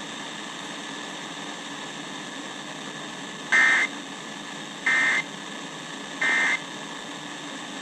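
Three short screeching bursts of Emergency Alert System data tones, evenly spaced about a second apart, over steady weather-radio hiss: the pattern of the SAME end-of-message code that closes an alert.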